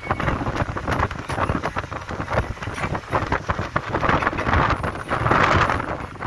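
Wind and road noise of a vehicle travelling along a road, picked up by a phone held out of the open side window: a fluctuating rush with gusty buffeting.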